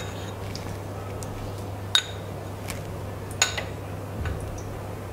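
A ceramic bowl and metal spoon clinking twice, sharply, as they are set down on a plate, about two and three and a half seconds in, the second clink the louder, followed by a softer knock; a steady low hum runs underneath.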